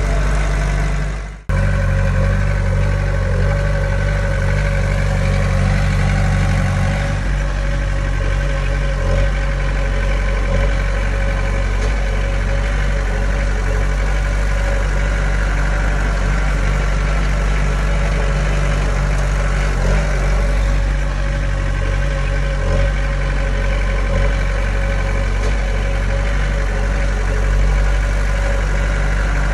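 Small Komatsu bulldozer's diesel engine running steadily as it works, pushing soil. About a second and a half in, the sound briefly fades out and cuts straight back in.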